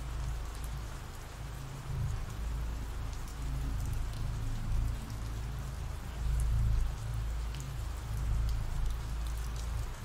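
Steady rain falling, an ambient rain sound-effect track, with a deep rumble underneath and faint scattered drop ticks.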